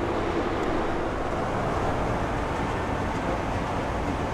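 Turbofan engines of a Boeing 737-800 airliner (CFM56-7B) running with a steady rumble. A faint hum fades out within the first second.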